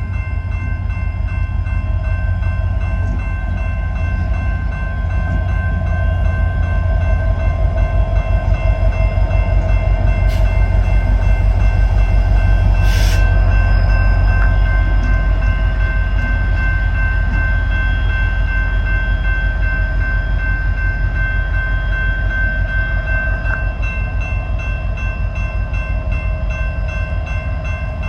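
Freight train hauled by two EMD SD70MAC diesel-electric locomotives rolling by, their 16-cylinder two-stroke diesels running with a deep, fast, even pulsing rumble and a steady high whine over it. It grows louder toward the middle and eases off toward the end.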